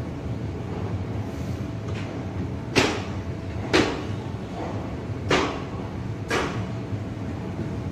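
ICF passenger coach rolling slowly along the track with a steady low rumble, its wheels clacking over rail joints in two pairs of sharp knocks about a second apart.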